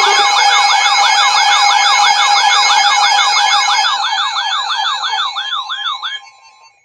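Electronic siren yelping, its pitch sweeping up and down about four times a second over steady tones. The sweeps slow slightly as it fades, and it cuts out about six seconds in.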